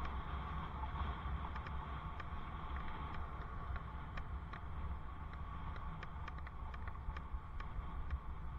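Wind rumbling on a helmet-mounted camera microphone during a bicycle ride, a steady low noise, with a scatter of light clicks through the second half.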